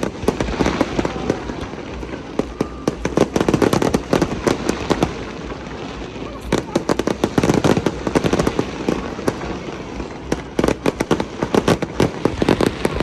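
Fireworks display: rapid volleys of bangs and crackling reports in dense clusters, thinning briefly twice before building again.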